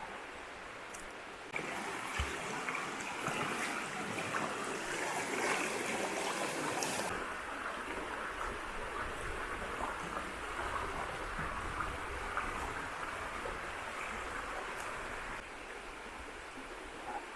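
River water flowing steadily, a rushing hiss that turns louder suddenly about a second and a half in and drops back shortly before the end.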